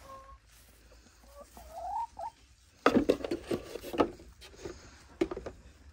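Knocks, clicks and rustling as a hand reaches into a galvanized chicken nest box to collect eggs, with a hen's soft wavering call a little over a second in.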